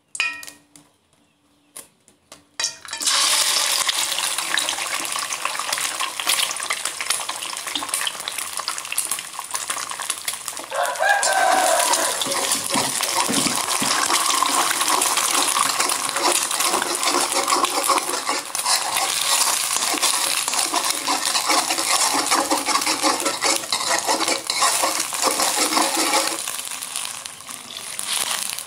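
Egg frying in hot oil in a wok: a loud, steady sizzle that starts suddenly about three seconds in, with a spatula scraping and stirring the egg around the pan. The sizzle drops off near the end.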